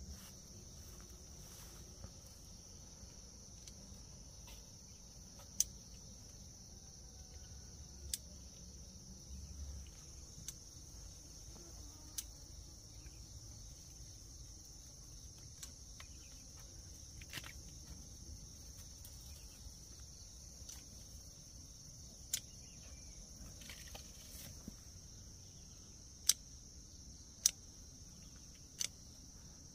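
Faint, steady high-pitched insect chorus, with a sharp click every few seconds and several clicks close together near the end.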